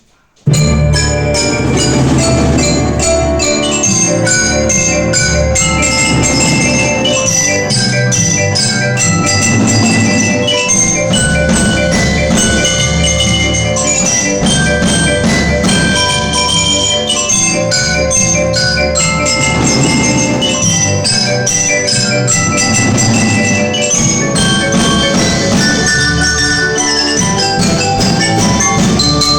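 Background music led by bright mallet percussion playing quick, ringing notes over a steady low bass line. It starts abruptly about half a second in and runs on at an even loudness.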